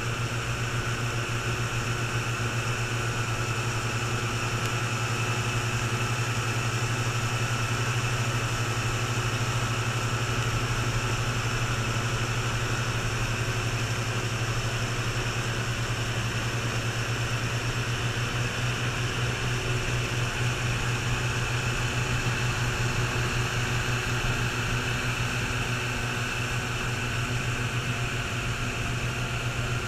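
Antique outboard motors running steadily at cruising speed on small aluminum boats: an even, unchanging engine drone over the rush of water past the hulls.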